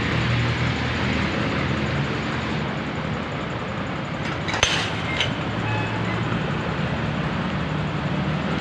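Steady low rumble of a vehicle engine running nearby, with one sharp click a little past halfway.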